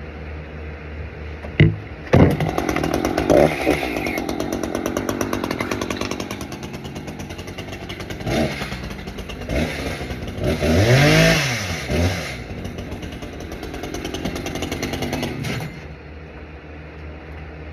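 Echo CS-590 two-stroke chainsaw engine starting about two seconds in after a knock, running, revved up and back down once near the middle, then shut off near the end.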